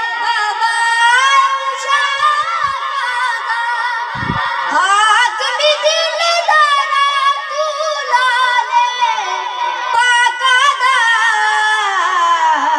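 A boy's high voice singing a naat, an Urdu devotional song, into a microphone in long, wavering held notes.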